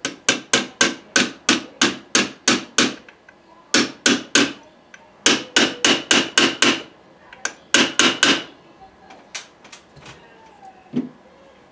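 Small hammer tapping a punch to drive the gas tube pin into an AR-15 gas block: quick ringing metal taps, about three a second, in four runs with short pauses between them, then a few lighter taps near the end.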